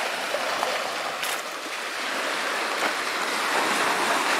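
Small waves washing over a pebble shoreline: a steady hiss of surf and water running back through the stones.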